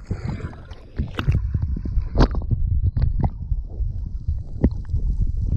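Water sloshing and gurgling around a camera dipped at and just below the surface beside a boat hull. It sounds muffled and low, with scattered sharp clicks and pops.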